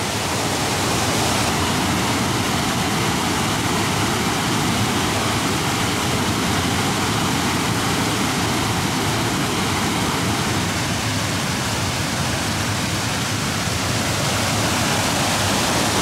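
Waterfall and fast river water rushing in a steady, loud, unbroken wash of noise.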